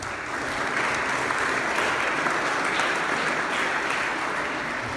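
Audience applauding steadily, the clapping starting suddenly.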